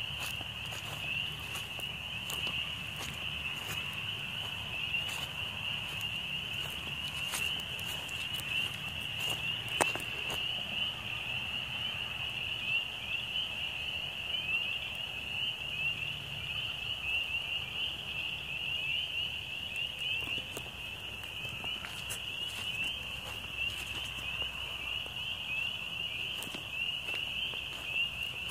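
A dense chorus of frogs, a continuous high-pitched mass of many short rising calls overlapping each other. A few faint clicks are scattered through it, with a sharper one about ten seconds in.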